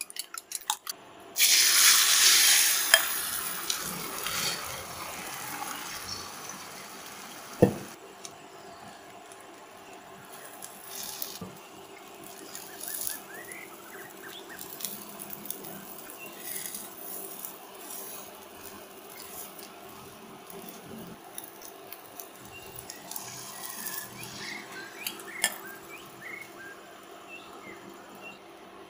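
Beaten egg hitting hot oil in a nonstick frying pan: a loud sizzle starts about a second in and fades over several seconds into quiet steady frying. The frying is broken by scattered scrapes and taps, with one sharp tap several seconds in.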